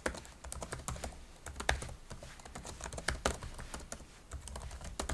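Typing on a computer keyboard: an irregular run of keystroke clicks, with a short pause near the end.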